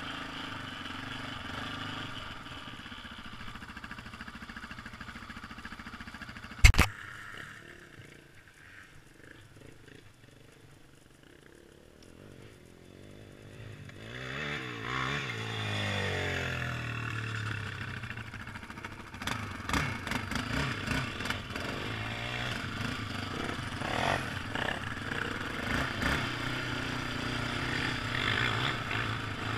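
ATV (quad) engine running under a rider-mounted camera, with one sharp knock about seven seconds in. The engine then falls quiet for a few seconds, revs back up with rising and falling pitch, and runs hard with clattering over rough ground near the end.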